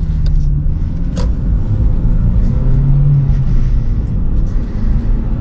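Acura RSX's four-cylinder engine running with road rumble while driving, heard from inside the cabin; the engine hum wavers in pitch, and there is a short click about a second in.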